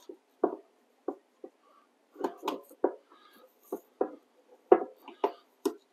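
Gearbox housing of a DeWalt 735X thickness planer clunking against the machine's frame as it is wiggled back and forth by hand to work it loose. About a dozen short, irregular knocks.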